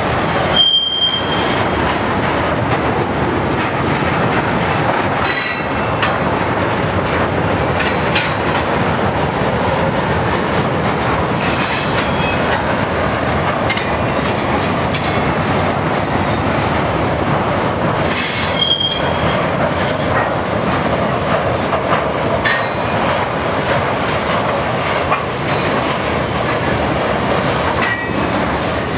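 Flatcars of a loaded steel freight train rolling past: a steady rumble of steel wheels on rail with scattered clicks over the rail joints. Two short, high wheel squeals, about a second in and again around eighteen seconds in.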